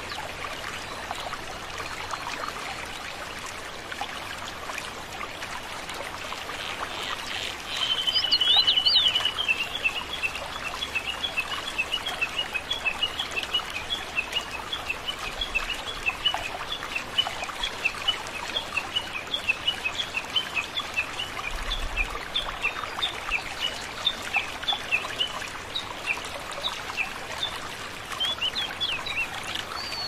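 Small waterfall splashing and trickling steadily over rock. A bird calls over it: a fast trill about eight seconds in, then a long run of quick, repeated chirps that lasts almost to the end.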